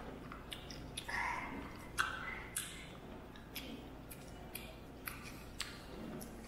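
Close-up eating sounds of someone chewing cold cooked cocktail shrimp: soft chewing with scattered sharp wet mouth clicks and smacks, roughly one every half second to second.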